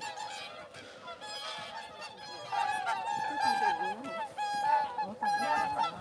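A flock of swans honking, with many short calls overlapping. The calls grow denser and louder about halfway through.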